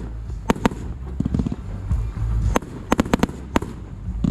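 Fireworks going off: about a dozen sharp bangs, some coming in quick runs of three or four, over a low rumble.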